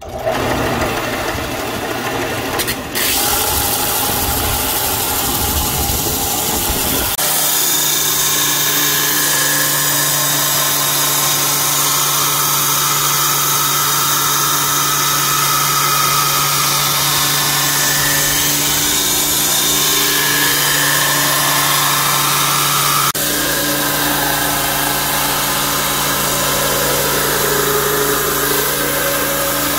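Belt grinder running, its abrasive belt grinding a steel knife blade: a steady motor hum under the rasp of the belt on steel. The sound changes abruptly about seven seconds in and again past the twenty-second mark.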